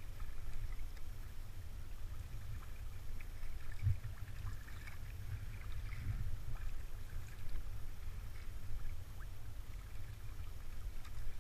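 Sea kayak under way: paddle blades dipping and dripping with small splashes of water, over a steady low rumble.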